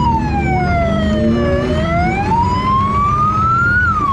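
A wailing electronic siren sounds from the decorated party bus, over a low rumble. The pitch falls for about a second and a half, climbs slowly for about two seconds, then drops again near the end.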